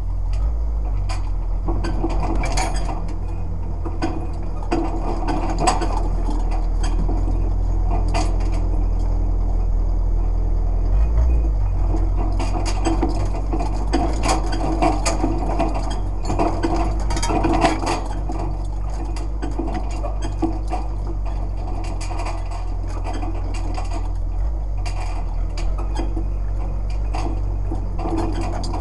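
A vehicle's engine running steadily while it drives slowly over a rough dirt track, with its metal frame rattling and clanking over the bumps.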